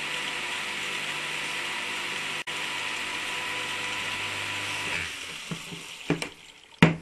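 Salamander electric water pump's capacitor induction motor running on the bench with a steady hum and hiss, running fine. It stops about five seconds in, followed by a few sharp knocks, the loudest just before the end.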